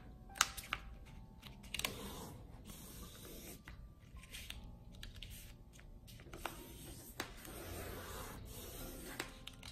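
A sheet of A4 paper being folded and creased by hand: soft rustling and sliding as fingers press along the fold, with scattered crisp crinkles and taps.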